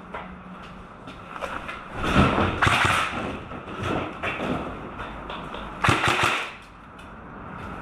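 Two bouts of sharp clattering and thumps, one about two seconds in lasting about a second and another about six seconds in, amid a low steady hum.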